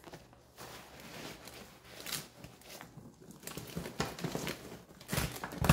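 Hands rustling and pressing fabric-and-mesh compression packing cubes inside a carry-on suitcase: irregular brushing and crinkling strokes, the loudest near the end.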